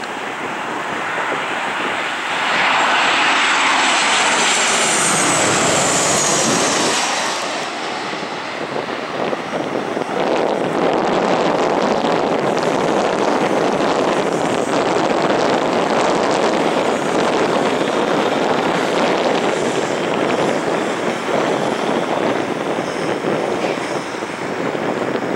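Boeing 737 jet engines passing low overhead on approach to land. The noise builds, peaks with a high whine that falls in pitch about three to seven seconds in, then settles into a steady rushing jet noise as the airliner moves away down toward the runway.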